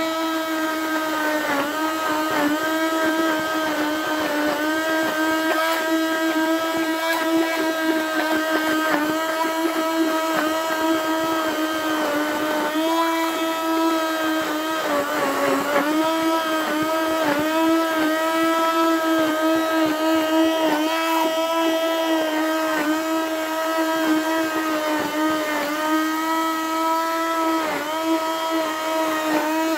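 Electric hand-held stick blender running steadily in a plastic jug of thick insect mush, a high motor whine whose pitch dips briefly now and then as the blade works through the mixture.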